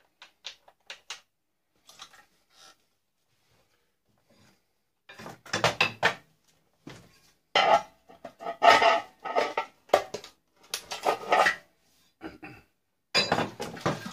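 Metal parts and hand tools clattering and clinking while an old tube TV is stripped for scrap: a few light clicks at first, then repeated bursts of clattering from about five seconds in.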